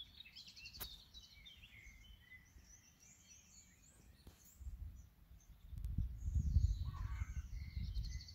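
Small birds chirping and singing in the background, with short high calls scattered throughout. A low rumble comes in about five seconds in, grows louder around six seconds and runs to the end, louder than the birdsong.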